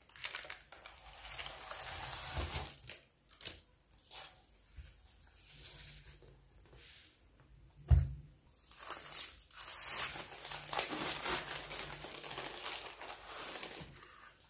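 Baking parchment crinkling and rustling as a baked pie is handled out of its tart tin onto a wooden board, with one sharp knock about eight seconds in.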